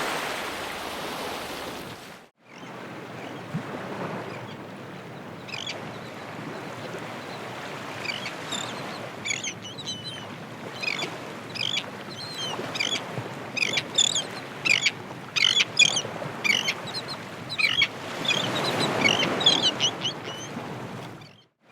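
Ocean surf washing in, with a brief dropout about two seconds in. Through the middle, many short, sharp bird calls come in quick succession, and a wave surges near the end.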